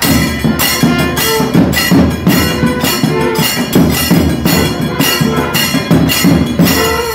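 Temple procession percussion: barrel drums struck with sticks and clashing hand cymbals playing a fast, steady beat of about three strokes a second, with a few short held notes from a wind instrument.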